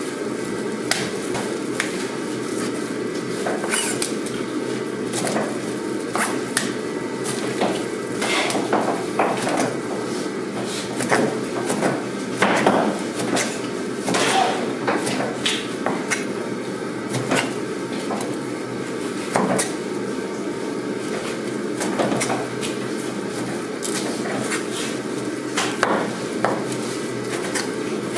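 A chef's knife knocks irregularly on a plastic cutting board as raw skinned stingray wing is sliced into thin strips. A steady low hum runs underneath.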